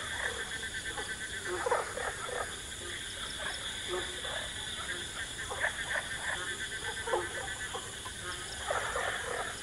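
Frogs croaking in short, irregular calls, over a steady high-pitched drone.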